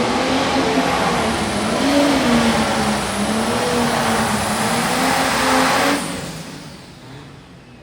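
Light Pro Stock pulling tractor's turbocharged diesel engine running flat out under load during a pull, its pitch wavering up and down. About six seconds in the sound drops off suddenly and dies away with an echo as the run ends.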